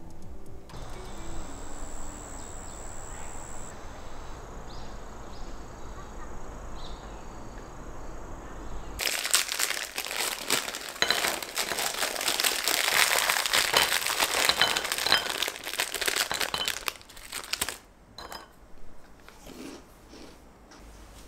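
A plastic snack packet crinkling as small round biscuits are shaken out of it into a ceramic bowl, a dense crackle starting about nine seconds in and lasting about nine seconds, after a steady faint hiss.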